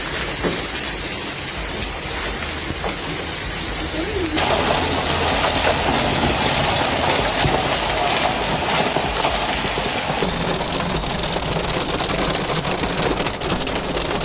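Heavy rain pouring down and pattering hard on surfaces, a dense, steady hiss. The sound changes abruptly about four seconds in and again about ten seconds in, as the footage cuts between shots.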